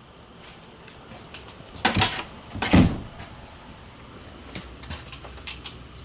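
A door in a travel trailer's bathroom being shut: two loud knocks a little under a second apart, followed a couple of seconds later by a few light clicks and taps.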